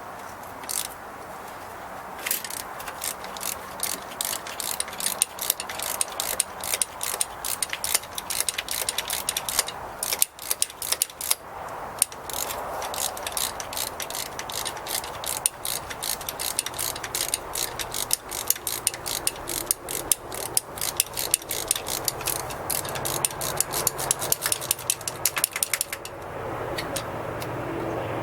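Hand socket ratchet wrench clicking in rapid runs as bolts are worked loose on an engine, with a short pause partway through.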